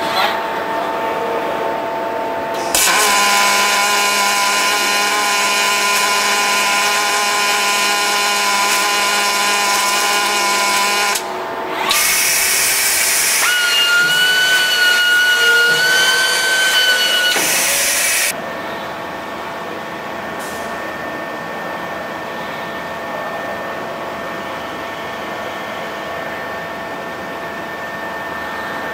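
Kawasaki welding robot arc welding in two runs: a loud, steady hiss about three seconds in lasting some eight seconds, then, after a brief break, a second run with a high whine. Both stop abruptly, leaving a steady hum from the cell.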